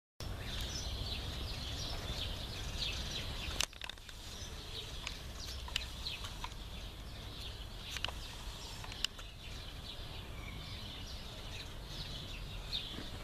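Outdoor ambience of many small birds chirping, with a steady low rumble and a few sharp clicks; the level drops suddenly about three and a half seconds in.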